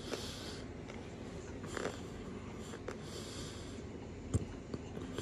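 Someone chewing a mouthful of eating chalk close to the microphone, with two breaths out through the nose and a few sharp clicks, the loudest about four seconds in.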